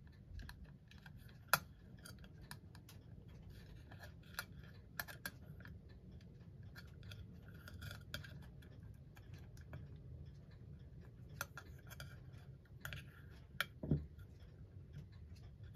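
Small screwdriver clicking and scraping against the hand fastenings at the centre of a clock dial: faint, irregular light metal clicks, with a soft knock near the end.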